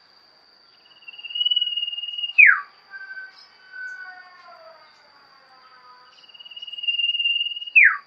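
Common iora (cipoh) singing loudly: twice, a long trilling whistle held at one pitch for about a second and a half that ends in a sharp downward slur, with softer gliding notes in between.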